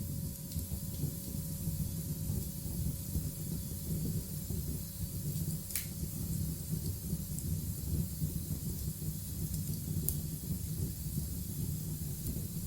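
Steady rushing, hissing ambience with a deep rumble underneath and a couple of sharp cracks, like a rain-and-thunder nature soundscape.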